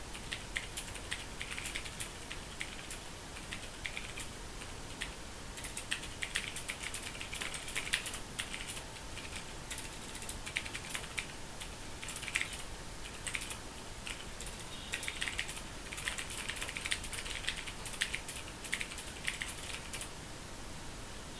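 Fast typing on a Ducky Mecha mechanical keyboard: rapid key clicks in bursts with brief pauses between them, stopping about a second before the end.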